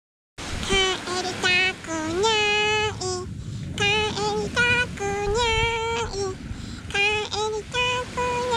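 A high-pitched voice singing a short tune in held notes with small slides between them, over steady background noise. It starts abruptly about half a second in, after silence.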